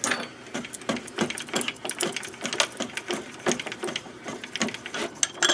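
Harbor Freight 44991 mini mill table being cranked by its handwheel along the leadscrew to the end of its travel: rapid, irregular mechanical clicking and rattling of the feed, with a sharper click near the end.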